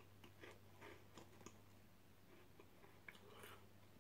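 Faint crunching of a person chewing Tohato Caramel Corn, a dry puffed-corn snack: a loose string of small crisp crackles over a low steady hum.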